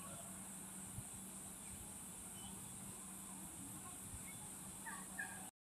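Faint outdoor ambience of steady high-pitched insect buzzing, with a few faint chirps near the end. The sound cuts off suddenly just before the end.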